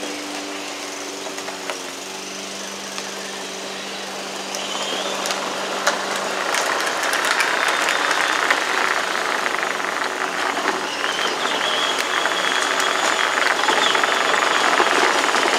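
Radio-controlled Power Wheels Ford F-150 ride-on toy truck driving on concrete: its plastic wheels and drive train rattle and its electric drive motors give a faint high whine. The sound grows louder from about five seconds in as the truck comes up the driveway. At the start there is a steady low hum, which fades out by about six seconds.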